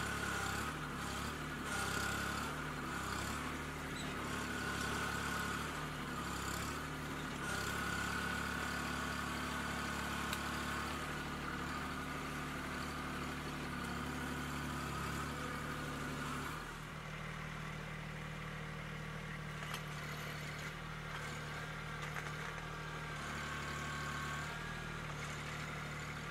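Kubota B2261 compact tractor's diesel engine running under load while the front loader's ripping blade tears out a stump, the engine note and a high whine rising and falling as the loader works. About two-thirds through the sound changes to a steadier, slightly quieter engine note.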